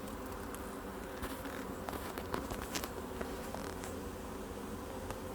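Honeybees buzzing as a steady hum over an open hive, with a few faint clicks.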